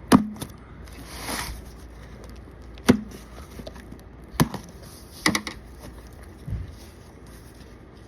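A cardboard box being opened by hand: several sharp knocks and taps against the box, with a short rustle of cardboard or packing about a second in.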